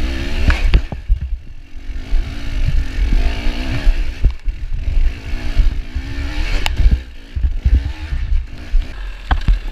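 Dirt bike engine revving up and down as it is ridden through a muddy, rough trail section, with scattered knocks and clatter from the bike over the ground.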